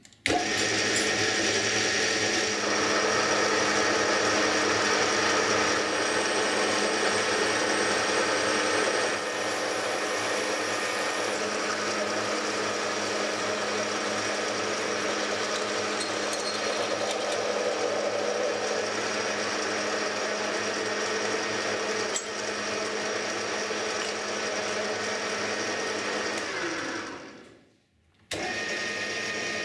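Soviet-built metal lathe running, a steady motor and gear whine. Near the end it winds down in pitch to a stop, then the running sound comes back abruptly.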